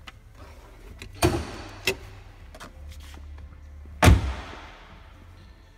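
BMW Z4 M Roadster's door handled: two sharp clicks, then the door shut with a heavy thump about four seconds in.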